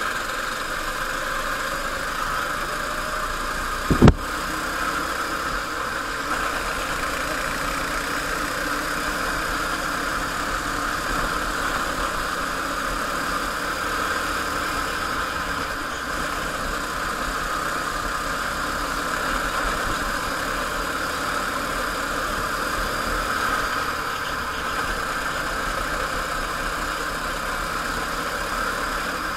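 Go-kart engine running steadily under way, heard from the kart itself, with one loud thump about four seconds in.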